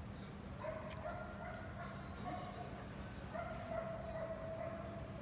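A dog whining in two long, steady, high-pitched whines of about two seconds each, the first starting just under a second in and the second about three and a half seconds in.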